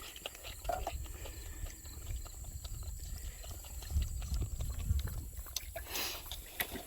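Calf feeding on milk: irregular small sucking and clicking noises with shuffling, over a low rumble, and a short louder rustle about six seconds in.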